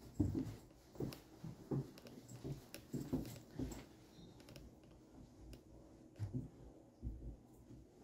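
Soft footsteps, about one or two a second, with light clicks over them; they ease off for a moment about halfway through.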